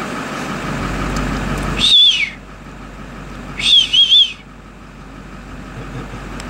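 Two short, loud, high-pitched whistles about two seconds apart, each wavering in pitch, the first falling away at its end. A vehicle engine idles steadily underneath.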